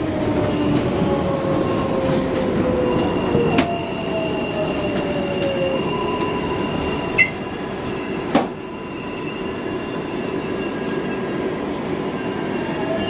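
Interior sound of an R142A subway car braking into a station: wheel and rail noise under the motors' whine, which slides down in pitch as the train slows. Three sharp clacks come from the wheels over the track, about 3.5, 7 and 8.5 seconds in.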